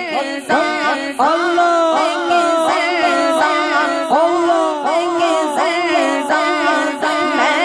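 Unaccompanied singing of an Urdu naat: a wordless, melismatic vocal line with constant quick turns and glides in pitch.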